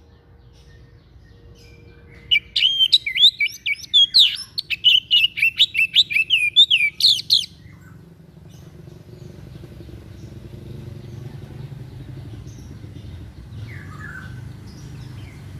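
A songbird singing a rapid, chattering run of sharp, varied chirps for about five seconds, starting about two seconds in. Afterwards a low steady rumble builds, and one short faint call comes near the end.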